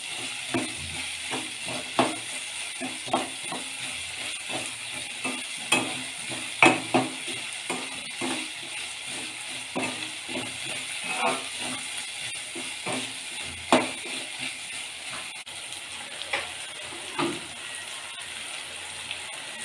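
Metal spatula scraping and knocking irregularly against a metal kadai as chopped vegetables are stirred, with a steady sizzle of the vegetables sautéing in oil underneath.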